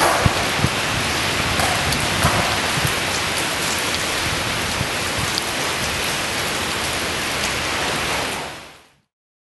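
Steady rain with a few light knocks in the first couple of seconds. It fades out to silence about eight and a half seconds in.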